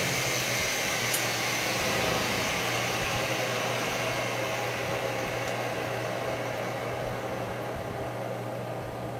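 A power tool's motor winding down after use, a steady whirring hiss slowly fading, over a constant low hum.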